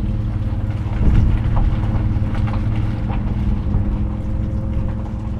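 An engine running steadily at a constant speed, a low even hum with a few faint clicks over it.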